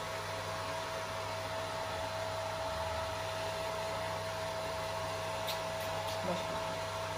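Handheld hair dryer running steadily with a constant whine, its airflow aimed at a wet cat's fur.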